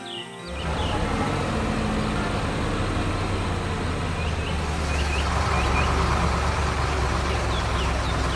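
Heavy diesel quarry machinery running steadily with a deep engine hum, coming in suddenly about half a second in. Small birds chirp over it a few times.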